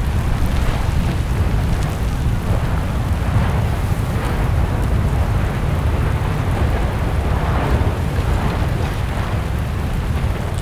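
Deep continuous rumble of an erupting volcanic vent, with rushing surges every second or two as the lava in the crater churns.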